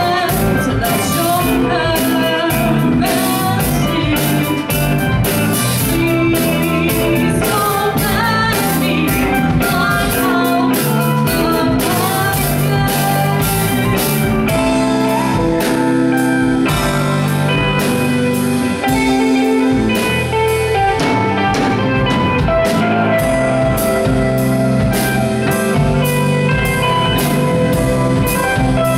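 Live rock band playing: electric guitar, bass guitar, keyboard and drum kit keeping a steady beat, with a woman singing.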